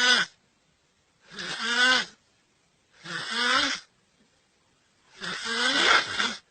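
A person snoring loudly in slow, even breaths: a rasping, pitched snore about every 1.7 seconds, three full snores after the tail of one at the start.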